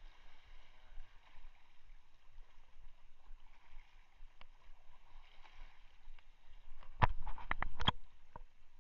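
Steady wash of wind and choppy sea water. About seven seconds in comes a second-long run of sharp clicks and rattles from the spinning reel being worked, the loudest sound here.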